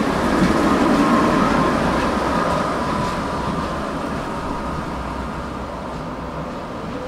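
Tram running on its rails: a steady rolling rumble with a faint steady whine that gradually grows quieter.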